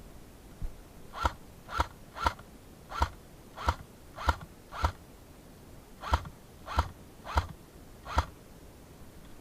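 Footsteps at a walking pace: seven steps, a brief pause, then four more.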